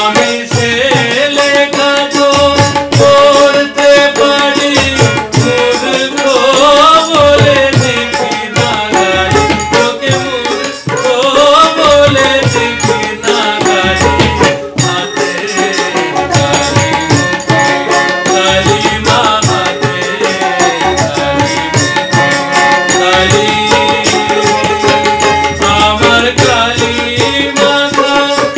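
A man singing a Bengali Shyama Sangeet (devotional song to Kali) in a wavering, ornamented melody, over a steady hand-percussion beat.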